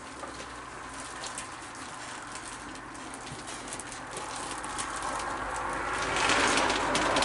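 A crowd of raccoons feeding: many small clicks and crunches of food being eaten, with soft cooing raccoon calls. A rushing hiss swells up near the end.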